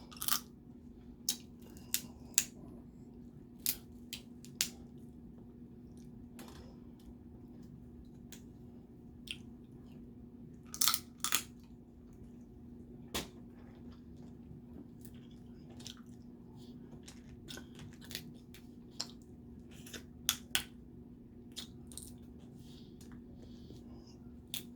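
Snow crab shell being cracked and pried open by hand, irregular sharp cracks and snaps with bouts of eating between them, over a steady low hum.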